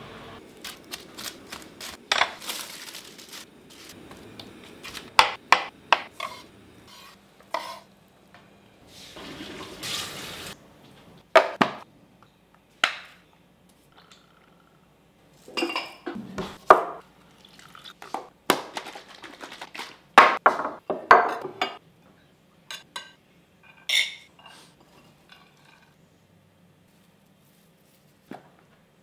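Kitchen cookware and utensils being handled: a string of separate clatters, clinks and knocks of metal, trays and bowls, with a few short stretches of hiss.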